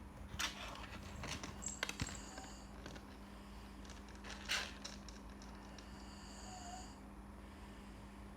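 A man snoring: two breathy snores about four seconds apart, with a few light clicks around two seconds in and a faint steady hum underneath.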